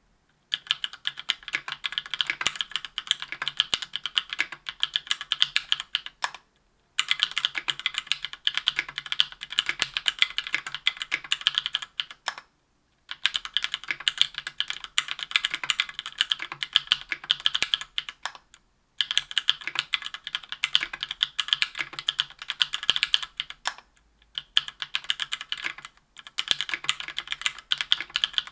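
Typing on a 60% aluminum-case mechanical keyboard with stock, unlubricated SP-Star White Meteor 57 g linear switches, aluminum plate and GMK keycaps: a dense, rapid clatter of keystrokes. It comes in runs of about six seconds, broken by brief pauses.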